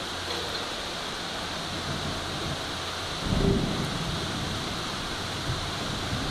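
Steady rain, with a sudden low rumble of thunder about three seconds in that fades over a second or so.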